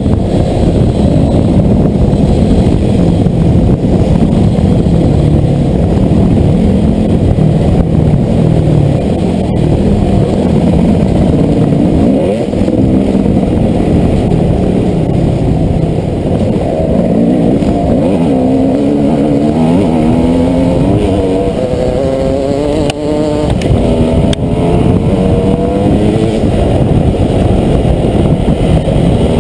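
Dirt bike engine running on a trail ride, heard loud from a helmet-mounted camera, its pitch rising and falling as the throttle is opened and rolled off, most clearly in the second half.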